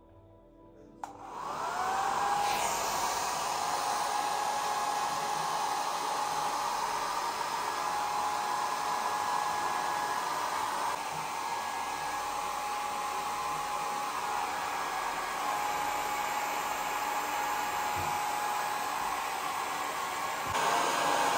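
Handheld hair dryer switched on about a second in, its motor whine rising as it spins up, then blowing steadily while drying hair. It gets briefly louder near the end.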